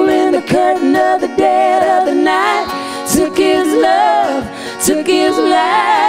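Acoustic guitar and ukulele strummed together, with a woman singing the melody in a wavering, held voice.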